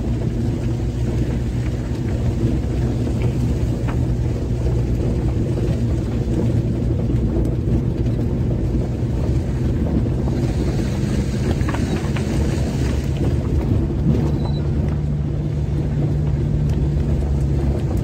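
Car engine running as the car drives over a dirt road, heard from inside the cabin with rumbling road noise; the engine note steps up in pitch about three-quarters of the way through.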